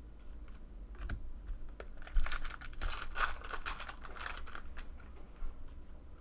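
Baseball card packs being handled: foil wrapper crinkling and cards being flipped through. There are scattered clicks, then a dense run of crackling and clicking from about two seconds in for a couple of seconds.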